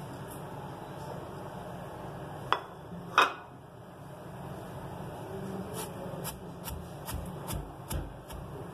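Steel pestle pounding crisp fried onions in a steel mortar (havan dasta) to grind them into a paste: a run of dull knocks, about three a second, in the second half. Two sharp knocks come a few seconds in, before the pounding starts.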